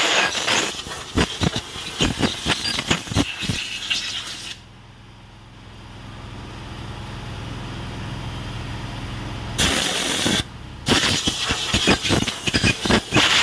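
High-pressure spray gun blasting a bare engine block with loud, spattering hiss. About four and a half seconds in, the trigger is let go and only the steady low hum of the generator and compressor is left. About ten seconds in, the spray starts again in a short burst, then runs on after a brief stop.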